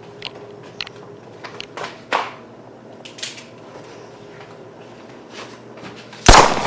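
Scattered small handling clicks and knocks, then a single sharp firecracker bang near the end, ringing off briefly.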